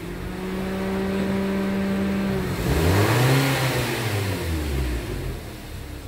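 Nissan Livina's four-cylinder petrol engine revved while parked, with the air conditioning off and an iForce plug-in module fitted. The revs are held steady for about two and a half seconds, drop, then rise and fall once more before easing back toward idle.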